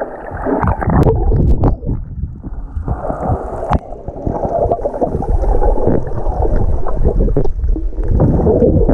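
Muffled underwater sound picked up by a submerged action camera: water churning and bubbles gurgling around swimming snorkelers, with scattered sharp clicks and knocks.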